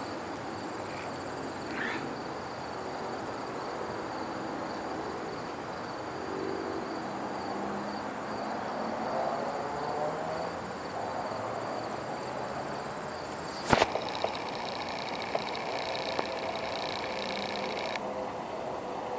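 Insects chirping steadily in high, pulsing tones over a constant outdoor background hiss. A sharp click, the loudest sound, comes about two-thirds of the way through, followed by a few fainter clicks.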